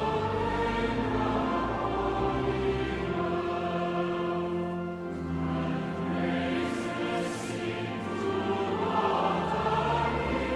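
Choir singing, with long held notes that change every second or two.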